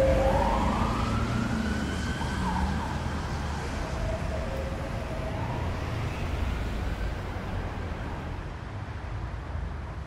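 Emergency-vehicle siren wailing, its pitch rising and then falling and the sound fading away, over the low rumble of city traffic.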